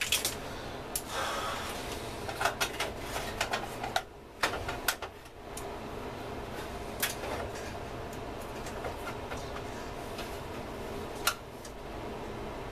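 Light clicks and knocks of test leads and parts being handled inside the open case of a welding inverter, over a steady faint hum. They come thick in the first five seconds, then sparsely, with one sharper click near the end.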